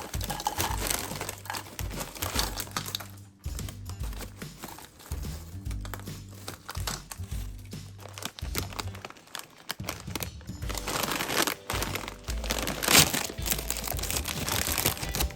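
Plastic snack chip bags crinkling and rustling as they are handled, in three stretches with short lulls between, over light background music.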